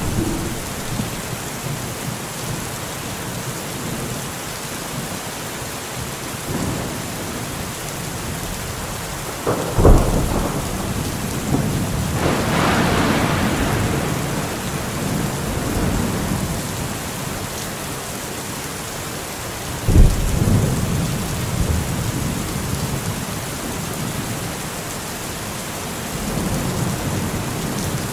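Steady rain with rolling thunder. Two sharp thunderclaps come about ten and twenty seconds in, each trailing off into rumbling.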